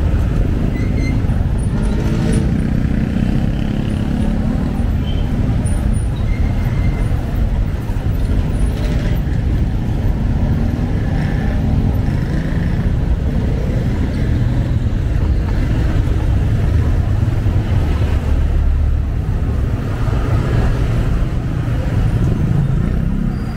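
Steady low rumble of a vehicle driving along a road, with engine and tyre noise and traffic around it.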